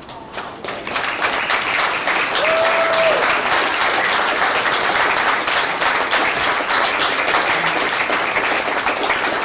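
Ringside crowd applauding: the clapping builds over the first second and then holds steady.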